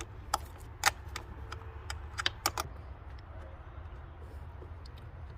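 Scattered sharp metal clicks and taps of a hand tool working an 8 mm bolt loose on a mass airflow sensor housing, irregular and bunched in the first three seconds.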